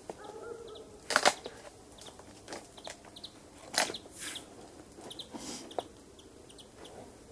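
Boots and hands knocking and scraping on the bark of a leaning tree trunk as a man climbs it, with sharp knocks about a second in and near four seconds in. Faint bird chirps come and go.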